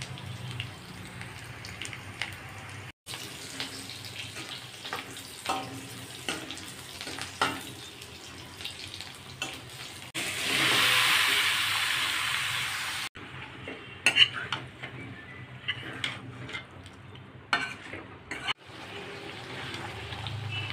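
Onions frying in hot oil in a metal kadai, a steady sizzle, with a spatula scraping and clicking against the pan. About halfway through, a louder rush of sizzling lasts roughly three seconds.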